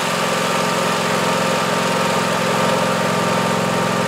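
Craftsman GT5000 lawn tractor engine running steadily, its sound unchanged as the controls are worked, with the mower blade not engaged.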